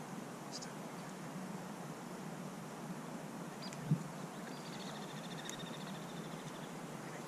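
Quiet rural outdoor ambience: a steady low hiss with a faint high trill in the second half, and a single soft bump from the handheld camera being moved about four seconds in.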